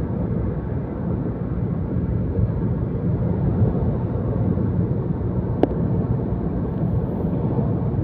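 Steady low rumble of a moving vehicle, with one sharp click about five and a half seconds in.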